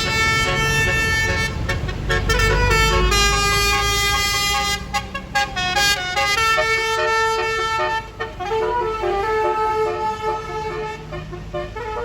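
Tour bus's basuri telolet horn playing a melody: a string of steady horn notes stepping from pitch to pitch, with the bus's engine rumbling underneath.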